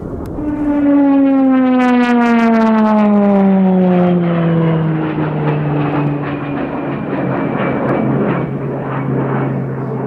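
Pilatus PC-21 single-engine turboprop flying past: the propeller's pitched drone is loudest early on and slides steadily down in pitch as the aircraft goes by, then holds lower and fades a little as it moves away.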